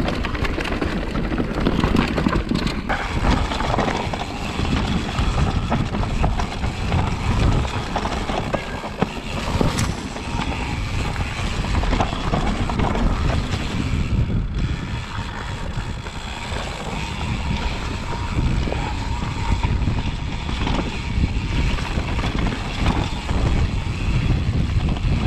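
Wind buffeting an action camera's microphone as a Specialized Kenevo electric mountain bike descends a dirt trail, with tyre noise and a steady run of clicks and knocks from the bike rattling over the bumps.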